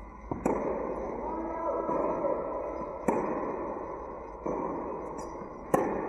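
Tennis rally in a large indoor hall: a racket sharply strikes the ball on backhands, three loud hits about two and a half seconds apart, with quieter hits in between from the far end of the court. Each hit rings on in the hall's echo.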